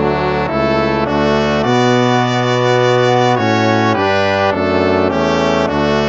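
Instrumental hymn in brass-like tones: slow, sustained full chords that change every half second to a second and a half.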